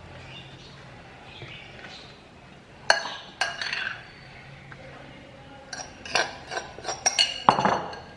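Kitchen utensils and dishes clinking and knocking: two sharp clinks about three seconds in, then a quick run of clinks near the end, some ringing briefly.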